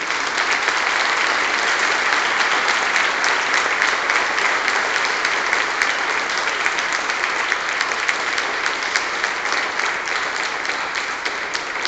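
A small seated audience applauding steadily, many hands clapping together.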